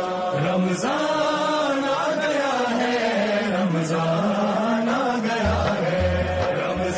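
A solo voice chanting a slow, ornamented melody over a music track; low bass notes come in about five seconds in.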